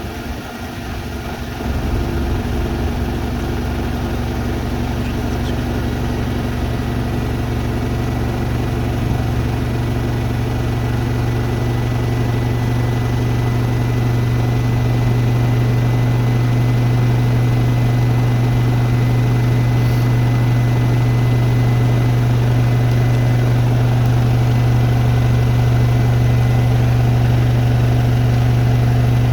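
Hoover Nextra Iconic and Beko WDER washing machines spinning at up to 1400 rpm on their final spin: a steady motor-and-drum hum with a faint high whine. The sound dips briefly near the start, builds gradually over the first fifteen seconds or so, then holds steady at full speed.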